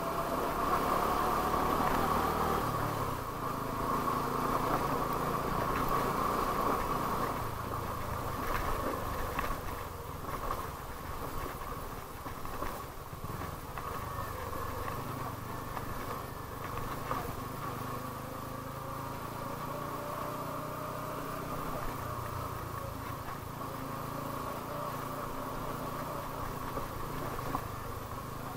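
TVS Apache RTR 200's single-cylinder engine running as the motorcycle rides slowly over a rough dirt track. The engine note shifts a few times with the throttle.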